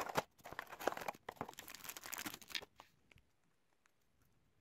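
Cardboard and wrapping crinkling and tearing as a small accessory box is opened and its contents unwrapped, a dense run of crackles lasting about three seconds. After that only a few faint clicks.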